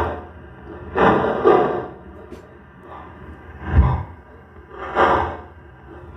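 A series of loud, muffled bursts, roughly one a second with a pause in the middle, over a steady hum with a fixed pitch.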